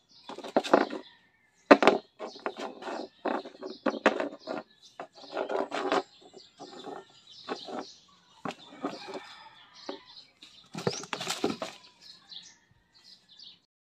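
A kitten batting a crumpled wrapper around on a plywood board: irregular bursts of rustling and scraping from the wrapper and the kitten's paws on the wood, loudest about eleven seconds in.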